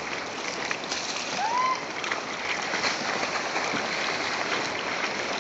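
Sea water lapping and splashing close to the microphone, a steady wash with small splashes. A short rising call is heard about one and a half seconds in.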